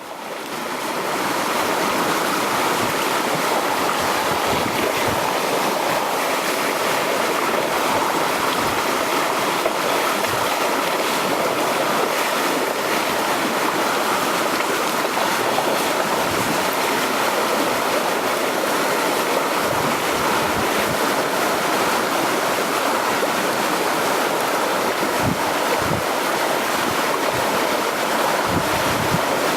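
Sea water washing steadily against the shore, a continuous surf wash with occasional low thuds. It fades in over the first second.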